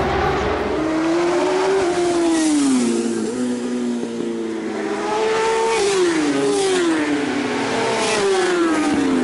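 Racing motorcycle engine running hard, its pitch climbing and then dropping sharply several times as it shifts through the gears.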